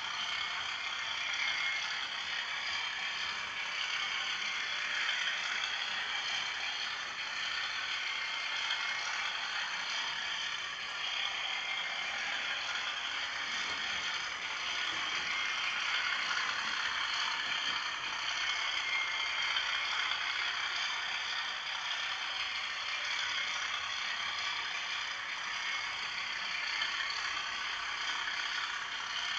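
Motor and gears of a Bachmann Class 37 model diesel locomotive running steadily along the track, a noisy-running model.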